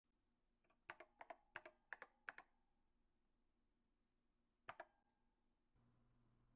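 Faint, sharp clicks, mostly in quick pairs: about eight in a burst from about one to two and a half seconds in, then one more pair at about five seconds. A low, steady hum and hiss come in near the end.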